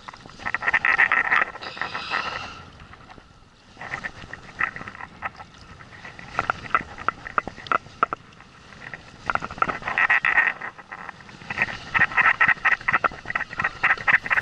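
Baitcasting reel's drag clicking in rapid bursts as a hooked fish pulls line off against it, with short lulls in between.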